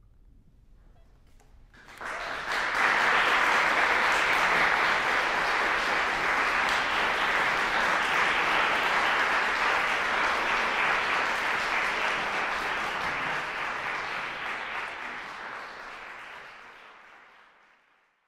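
Audience applauding. It starts suddenly about two seconds in, holds steady, then fades away over the last few seconds.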